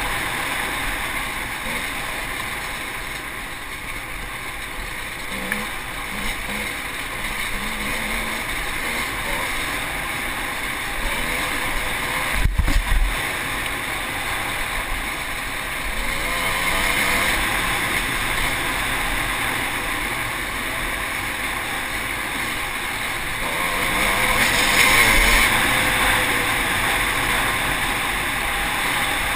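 Enduro motorcycle engine running as the bike rides a rough dirt track, with wind rushing over the microphone. A short burst of heavy thumps comes about halfway through, and the engine grows louder for a couple of seconds near the end.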